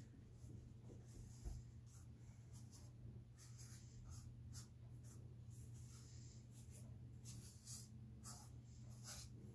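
Faint, irregular strokes of a flat paintbrush brushing paint onto stretched canvas, over a low steady hum.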